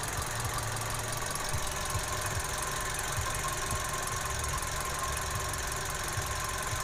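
Toyota 1NR-VE four-cylinder engine idling steadily, free of the rough knocking noise it had before. The fault therefore lies outside the engine itself, perhaps in the idler pulleys.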